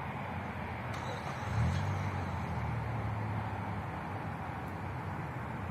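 First-generation Mazda 3's four-cylinder engine idling steadily through a straight-piped exhaust with the muffler cut off and the resonator left in. It swells briefly about one and a half seconds in, then settles back to an even idle.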